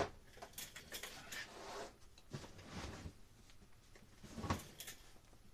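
A sharp knock right at the start, then several bursts of rustling and clattering as tools and objects are rummaged through and moved about while reaching for a hammer.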